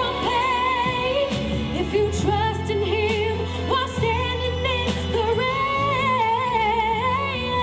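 A woman singing long, wavering held notes with vibrato over instrumental accompaniment with a steady bass line.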